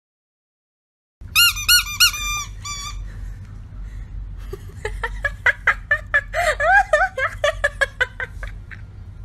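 A toy poodle whimpering in short, high-pitched squeaks. A quick run of about six comes about a second in, then a longer run of lower squeaks that waver in pitch, over a low steady hum.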